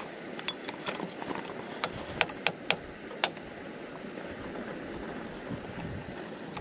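A metal fork clicking and scraping against a nonstick frying pan of sliced sucuk, about ten sharp clicks in the first three seconds, over a steady hiss.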